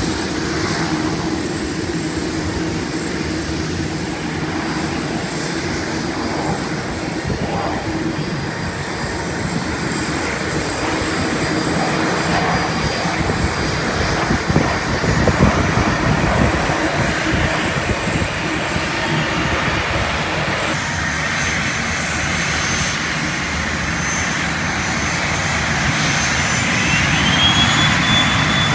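Business-jet turbofan engines running at an airfield: a steady rushing jet noise as a jet comes in to land. Near the end a high turbine whine rises and then holds as a business jet taxis close by.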